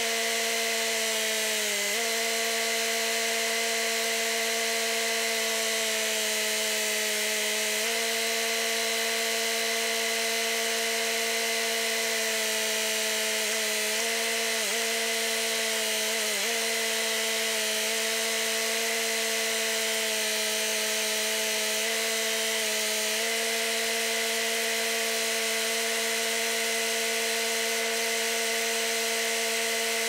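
Bobcat X331 mini excavator's diesel engine and hydraulics running at a steady speed with a high whine. The pitch sags briefly several times as the engine takes load.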